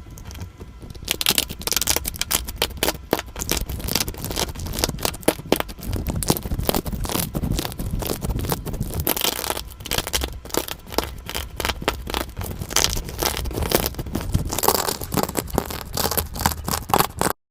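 Slime being squished and poked by hand: a dense, irregular run of crackling clicks and pops that stops abruptly near the end.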